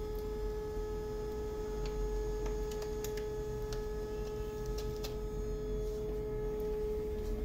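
Canon DR-F120 document scanner feeding a sheet through its automatic document feeder and scanning it: a steady motor whine with a few faint clicks, stopping at the very end. The feeder is now picking up the page since the broken paper-sensor part was replaced.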